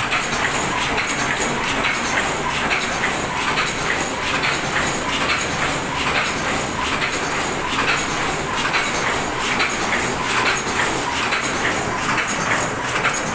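Open-cam fully automatic paper cup making machine running, a steady, even clatter of many quick mechanical knocks.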